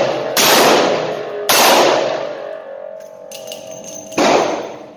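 A .357 Magnum snub-nose revolver, the RIA AL3.1, fires two shots about a second apart near the start with hot 158-grain loads. Each shot echoes off the concrete walls of an indoor range. A further sharp bang comes about four seconds in.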